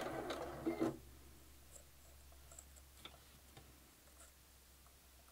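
Sewing machine stitching through crochet and fabric for about a second, then stopping. Afterwards only a few faint clicks of the work being handled sound over a low steady hum.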